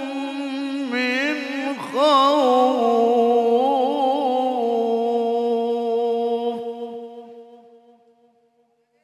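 A man's voice reciting the Quran in the melodic tilawah style, sliding through ornamented turns before settling on one long held note that fades away near the end.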